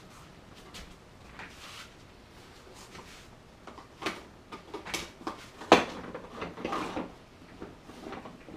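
Office chair backrest being handled and fitted onto the chair: scattered clicks and knocks with rustling, busier in the second half, and one sharp knock about two-thirds of the way through.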